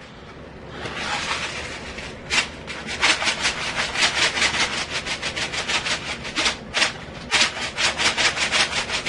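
Bacon bits being shaken out of a container onto a salad: a fast run of short, rhythmic rattling shakes, about six a second, with a brief break about seven seconds in.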